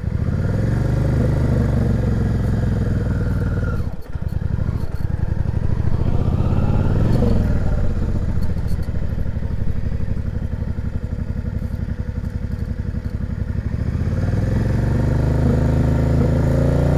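Yamaha XVS650 V-twin engine pulling away in first gear and accelerating. The revs rise right at the start, again about seven seconds in and from about fourteen seconds, then fall near the end. There is a brief drop in sound about four seconds in.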